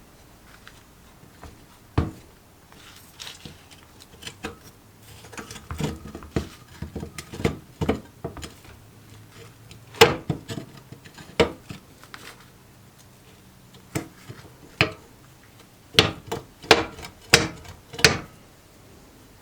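Metal stove parts clinking and knocking as they are handled and set down: irregular single knocks, the loudest about halfway through, and a quick run of sharp clinks near the end.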